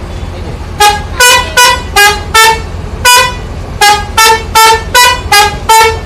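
Bus telolet horn playing a tune of about a dozen short toots at changing pitches, starting about a second in, over a steady low rumble.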